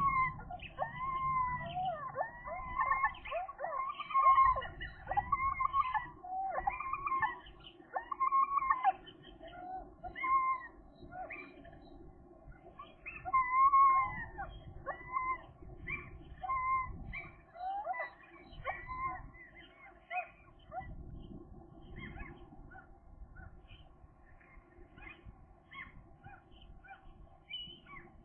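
Gulls calling in quick series of short calls that rise and fall in pitch, loud in two bursts, then thinning to soft scattered notes after about twenty seconds.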